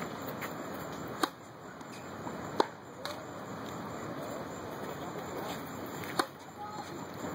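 Tennis racket strings striking the ball during serving practice: three sharp pops, a little over a second in, at about two and a half seconds (the loudest) and about six seconds in, the last one a serve being hit. A steady outdoor hiss lies under them.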